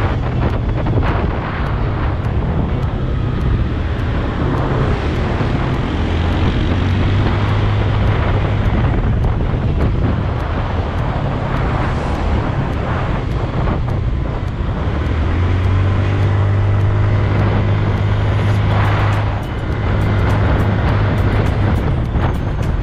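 Yamaha Mio Sporty scooter's single-cylinder four-stroke engine running under way, mixed with steady wind and road noise on the bike-mounted camera's microphone. The sound dips briefly near the end.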